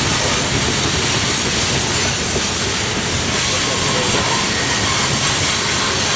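Loaded coal cars of a long freight train rolling past, their wheels running on the rails with a steady, unbroken noise.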